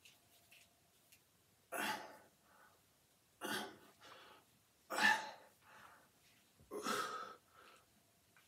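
A man exhaling hard in short, forceful puffs while curling dumbbells, four of them about a second and a half apart, one with each repetition.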